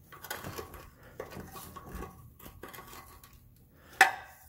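Exhaust hanger removal pliers clinking and scraping against the rubber exhaust hanger and the muffler's hanger bracket: a string of small metal clicks, with one sharp click about four seconds in.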